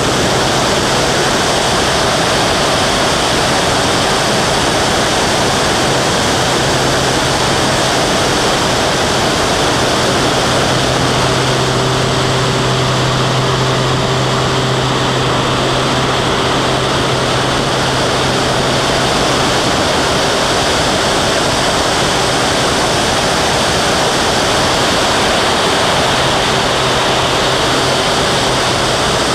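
Steady, loud rush of airflow over an outside-mounted camera on a propeller aerobatic aircraft in flight, with the drone of its piston engine and propeller beneath, growing stronger in the middle.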